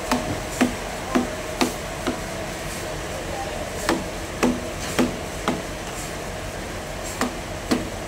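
Hammer striking a chisel to knock bark off the edge of a freshly bandsawn log slab: eleven sharp blows in three short runs, about two a second, over a steady background hum.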